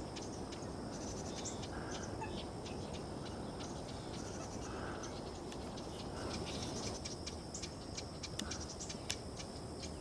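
Outdoor marsh ambience: a steady low rumble with scattered short bird chirps and faint high ticking.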